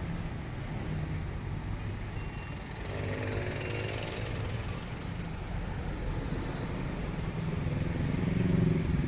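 Street traffic: a steady rumble of passing vehicles, with one engine passing by about three to four seconds in and the traffic growing louder near the end.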